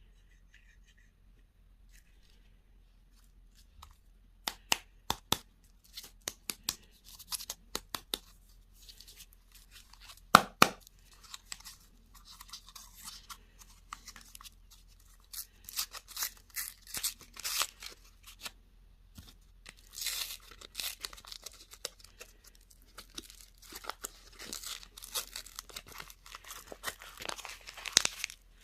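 Candy packaging being torn open and crinkled by hand: a run of sharp clicks and crackles, with the loudest snaps about ten seconds in and denser crackling near the end.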